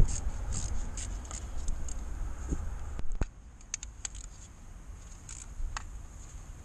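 Light clicks and scrapes of gloved hands disconnecting fittings on top of a diesel engine and packing rags into the open ports, with a low rumble under the first three seconds that drops away.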